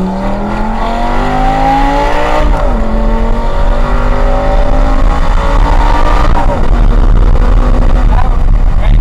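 Lamborghini engine under hard acceleration, heard from inside the car. It climbs in pitch, drops at an upshift about two and a half seconds in, climbs again, and shifts up once more about six seconds in, over a growing low road and wind rumble.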